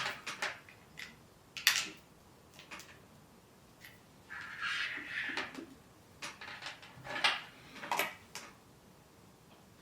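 Handling sounds from a DJI Osmo Mobile 6 gimbal and its charging cable being plugged in: scattered sharp clicks and taps, with a stretch of rustling about halfway through.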